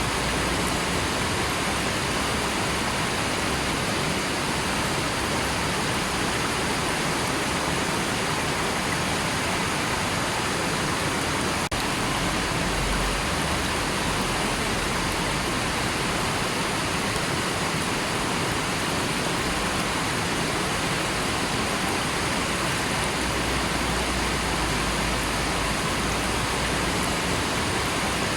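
River water rushing steadily, a continuous even wash of sound, with a momentary dropout about twelve seconds in.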